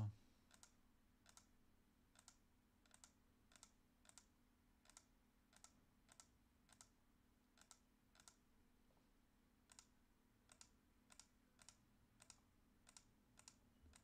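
Faint computer mouse clicks, about one every two-thirds of a second and a little quicker in the last few seconds, as highlight marks are cleared one by one from a wiring diagram on screen. A low, steady electrical hum lies under them.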